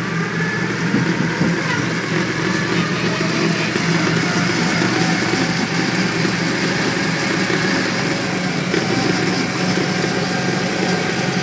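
Argo six-wheeled amphibious all-terrain vehicle's engine running steadily while driving, heard from the driver's seat.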